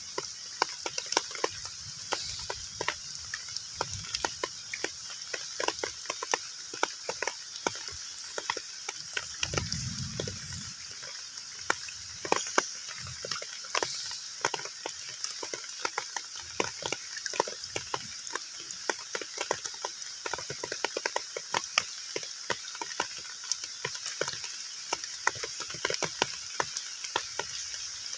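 Heavy rain falling on a pond's surface: a steady hiss with a dense, irregular patter of drops splashing into the water. A short low rumble comes in about ten seconds in.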